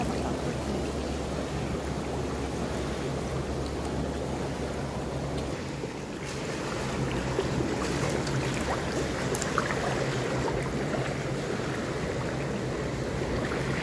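Steady rush of water, like surf, with a low rumble under it that stops about halfway through.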